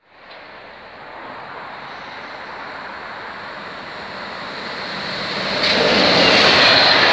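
Approaching SNCF BB22200 electric locomotive hauling a Corail train: a rushing noise that grows steadily louder, jumping up sharply about five and a half seconds in as the train draws near.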